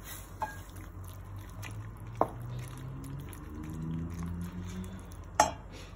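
Wooden spoon stirring a thick stew of pig intestines in pig blood in a stainless steel pan, a wet squishing, with a sharp knock about two seconds in and a louder one near the end.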